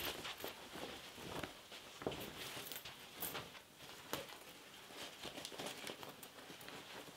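Cloth rustling as a coat is swung over a chair and its fabric tugged and smoothed by hand, with scattered soft ticks; the loudest rustle comes right at the start.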